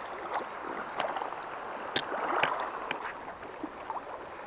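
Small sea waves lapping and sloshing against the rocks close by, with a few sharp ticks about a second apart.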